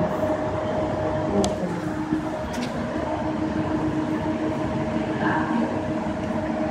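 Steady background hum and rumble with a constant tone running through it, and two faint clicks about one and a half and two and a half seconds in.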